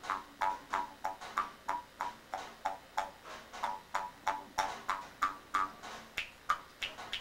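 Amis mouth harp (jaw harp) played in a steady rhythm of twangs, about three a second. Each twang rings with an overtone whose pitch shifts from stroke to stroke as the mouth reshapes, over a faint low drone.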